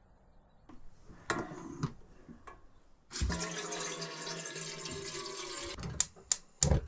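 Water running from a galley sink tap into a metal kettle for about two and a half seconds, then a few sharp clicks and knocks near the end.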